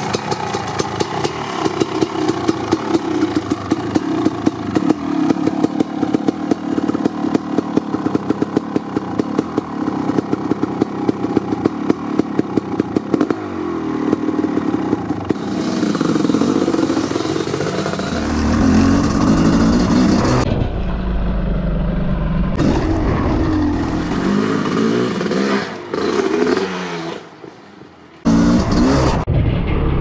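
1990 Kawasaki KX500 single-cylinder two-stroke dirt bike, fitted with an FMF Gnarly expansion chamber and Pro Circuit R-304 silencer, idling with a steady pulsing beat. From about halfway it is revved up and down in blips. After a brief dip near the end it runs on strongly.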